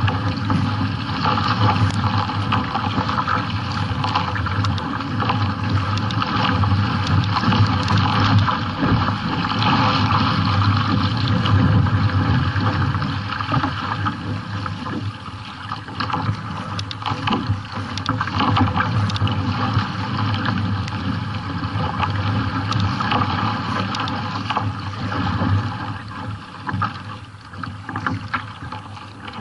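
Sea water rushing and splashing against a kayak's hull and bow as it is paddled hard through choppy water, with irregular paddle-stroke splashes.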